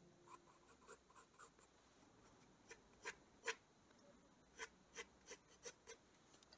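Faint pencil strokes scratching on paper, about a dozen short separate strokes, the loudest a little before the middle. The drawing is done with a graphite pencil, then a mechanical pencil.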